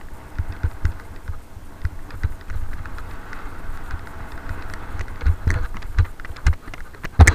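Mountain bike rolling over a loose gravel track: tyres crunching on the stones, with frequent knocks and rattles as the bike jolts over bumps, and one louder knock near the end.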